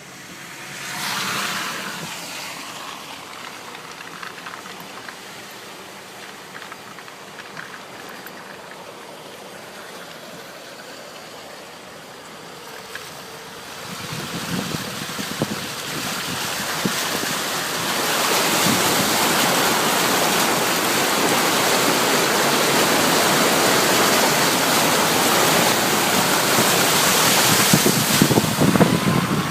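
Vehicles driving through floodwater, the water rushing and splashing around them; the noise builds about halfway through and stays loud until near the end.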